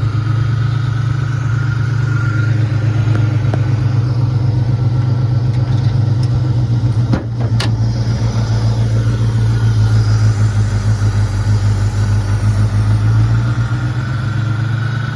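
1968 Mercury Cougar's 302 V8 idling steadily, with two sharp clicks about seven seconds in.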